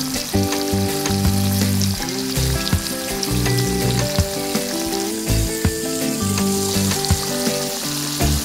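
Flour-coated fish pieces deep-frying in hot oil in a pan, a steady crackling sizzle. Background music with changing held notes plays underneath.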